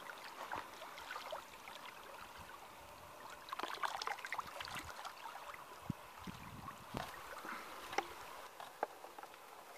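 Shallow water splashing and sloshing irregularly as carp fillets are rinsed by hand at the water's edge, busiest about four seconds in, with a few small clicks and knocks.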